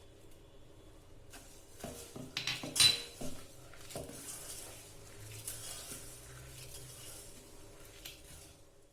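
A spoon clinking against a mixing bowl several times, the sharpest knock about three seconds in, then softer scraping as the mashed banana is stirred.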